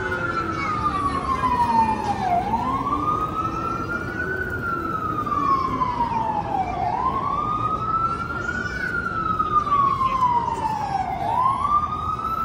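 Emergency vehicle siren in a slow wail, rising and falling about every four and a half seconds, over the steady noise of city traffic.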